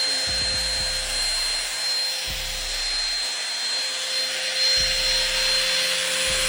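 24 V brushless angle grinder running at a steady full speed, a constant high whine over a rushing air noise. Low booming notes come in beneath it about every two seconds.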